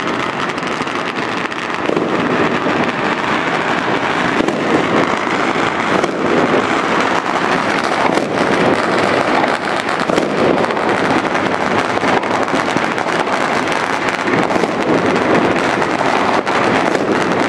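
Dense, continuous crackle of many fireworks and firecrackers going off at once, a steady wash of rapid pops and bangs with sharper reports scattered through it.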